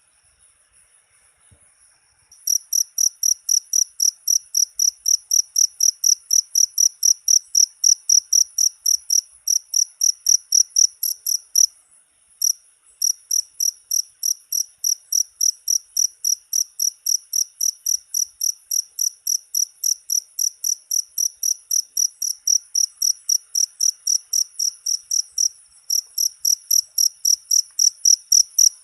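Cricket chirping: a faint, high, steady trill for about two seconds, then loud, shrill, evenly spaced chirps at about four to five a second, with a brief break about twelve seconds in and another near the end.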